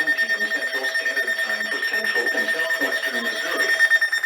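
Electronic weather alert alarm sounding continuously, a steady high tone with a fast, even pulsing beat, with a faint voice underneath; it precedes a tornado warning.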